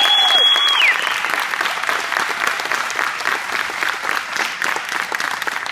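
Audience applause with scattered cheers for a show choir, opening under the last held high note of the singing, which slides down and stops just under a second in.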